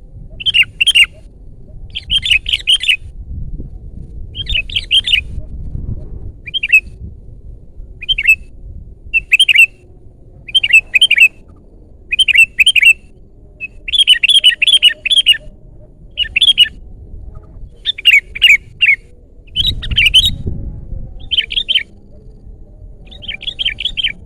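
Sooty-headed bulbul (kutilang) singing loudly: short, quick phrases of chirpy notes repeated every second or two. A low rumble sits under the song twice.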